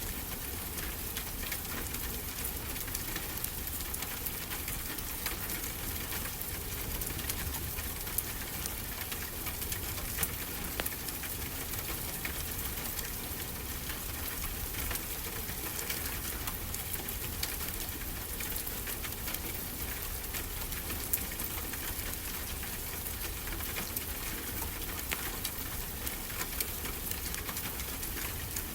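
Ambience mix of a wood fire crackling, with scattered sharp pops, over a steady wash of ocean waves.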